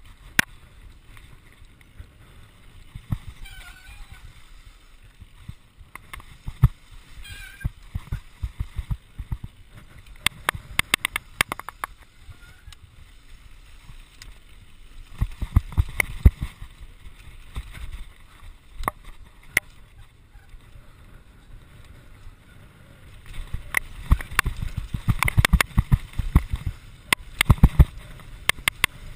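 Santa Cruz Nomad mk2 full-suspension mountain bike rattling and clattering as it rolls down a rough dirt and stone trail, heard from a chest-mounted camera: tyres crunching over loose ground with rapid clicks and knocks from the bike. The rattling comes in bursts, densest and loudest in the last few seconds.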